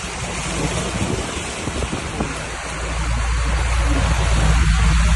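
Heavy rain pouring down, an even hiss of falling water. A low rumble swells under it in the second half.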